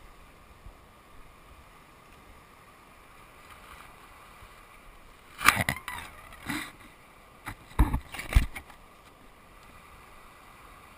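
Faint steady hiss, broken by a cluster of sharp knocks and rustles from about five and a half to eight and a half seconds in.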